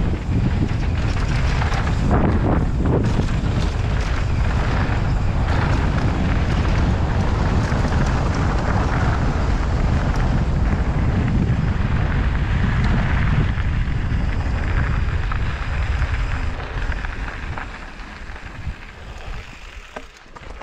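Wind rushing over the camera microphone, with mountain-bike tyres rolling fast on dirt and gravel. It is loud and steady, then dies down over the last few seconds as the bike slows to walking pace.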